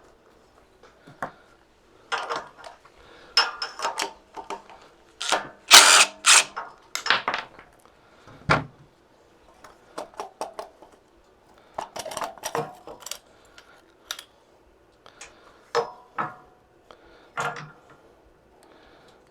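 Irregular clinks, clicks and knocks of hand tools and metal parts being handled during disassembly of a small generator, with a louder clatter around six seconds in.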